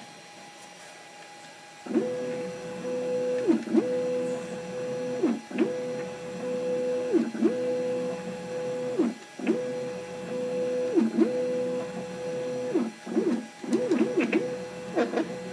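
NEMA 23 stepper motor under LinuxCNC control driving a carriage back and forth along guide rods by direct drive. A whine rises in pitch as each move speeds up, holds, and falls as it slows, repeating about every two seconds from about two seconds in, with a click at each stop. Near the end the moves become shorter and quicker.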